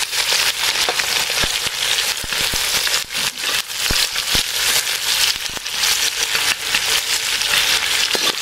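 Sliced onions sizzling steadily in hot sunflower oil in an aluminium wok, stirred with a metal spatula that clicks and scrapes against the pan now and then.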